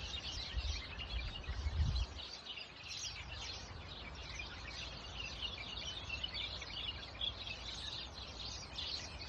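A chorus of many small birds chirping and twittering over one another, with a low rumble in the first two seconds.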